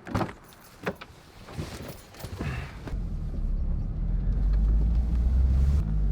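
A few clicks and knocks, then a car engine comes in with a low, steady rumble about three seconds in and keeps running.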